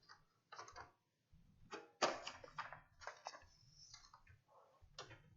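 Faint, irregular clicks and taps, a handful of them spread out, with the loudest cluster about two seconds in.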